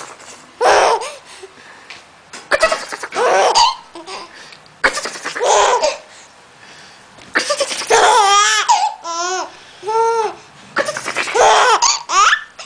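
A baby laughing hard in repeated bursts, several times over, with hiccuping, bouncing pitch; the laughter is set off by an adult's funny noises.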